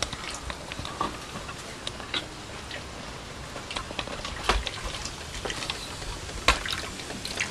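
Water from a garden hose running into an electric water heater tank as it is pressurized, a steady hiss with scattered pattering ticks and small knocks; two sharper knocks about four and a half and six and a half seconds in.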